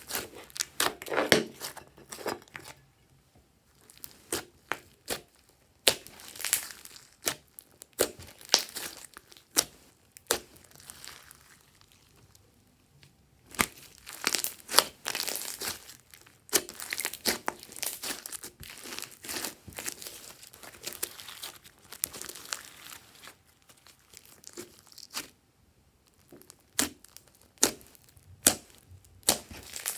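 Glossy slime being kneaded, stretched and pressed by hand, making irregular sticky crackles and small pops that come in bouts with short pauses between them.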